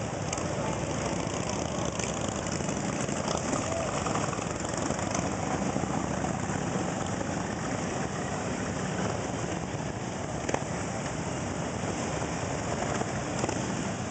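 Many large touring motorcycles passing in a long, slow column, their engines running together in a steady mass of sound. One brief sharp click comes about three-quarters of the way through.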